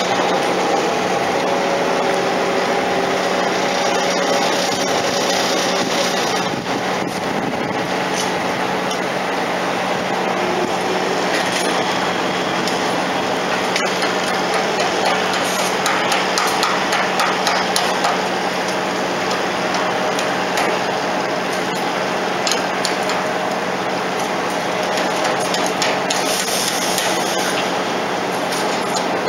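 Ferry's machinery running steadily as the ship comes into port: a constant low hum under broad rushing noise, with scattered light knocks and clanks.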